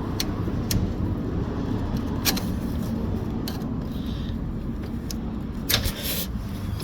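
A few sharp metallic clicks and clinks from handling a motorcycle sidestand and its springs, the loudest cluster near the end, over a steady low rumble.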